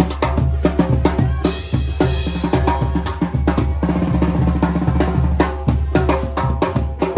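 A Mexican wind band (banda) playing a chilena, with snare and bass drum beating a busy rhythm under held horn notes.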